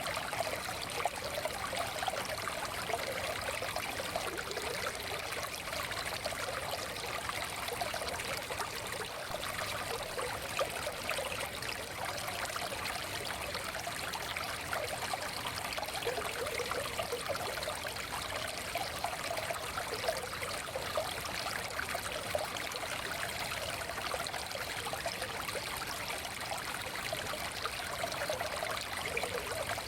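Forest stream flowing and trickling over stones, a steady babbling rush of water.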